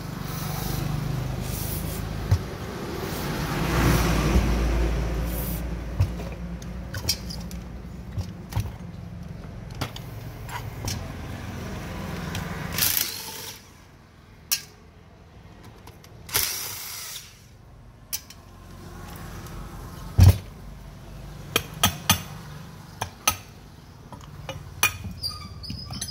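A steady mechanical rumble swells about four seconds in and cuts out about halfway through. Scattered clicks and knocks of tools and metal parts follow, the loudest knock about twenty seconds in.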